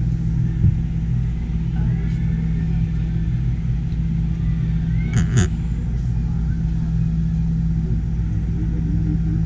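Steady low mechanical hum heard inside an enclosed Centennial Wheel gondola, with a brief rattling clatter about five seconds in.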